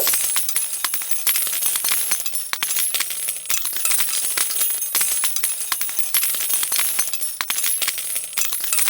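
Many coins pouring without a break onto a metal tray, a dense jingling stream of clinks like a slot-machine jackpot payout.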